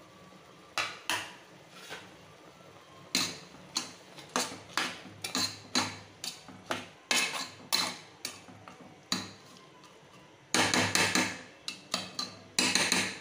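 Spatula knocking and scraping against the inside of a metal pressure cooker pot while stirring rice in coconut milk: a run of irregular sharp clicks and knocks, coming thickest near the end.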